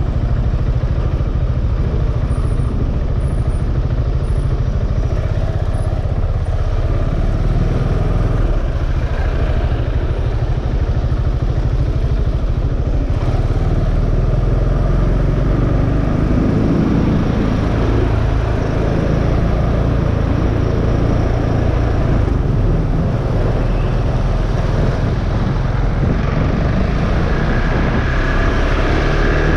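KTM Duke 690's single-cylinder engine running steadily while the motorcycle is ridden.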